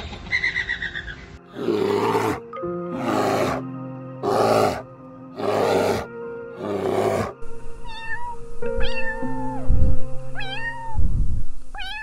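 Over steady background music, a bird chatters briefly at the start. Then come five loud, rough growls, about one every 1.3 s, from a brown bear. From about 8 s a domestic cat meows four times, each meow rising and falling in pitch.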